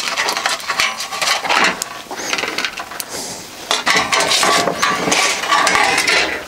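Thin sheet-metal pieces and a paper template being handled on a workbench: irregular scraping, rustling and light metallic clinks as the sheets are shifted and picked up.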